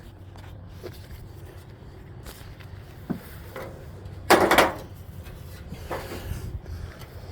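Ratchet straps being undone over sheet-metal fenders on a car roof: rubbing and handling noise, a sharp click about three seconds in, and a loud half-second scrape about four seconds in.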